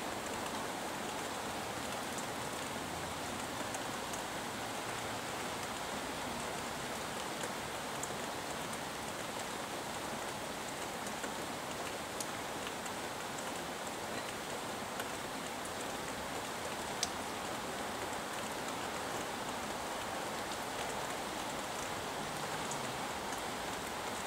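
Steady rain falling, an even hiss with scattered sharp ticks of single drops, one louder tick about two-thirds of the way through.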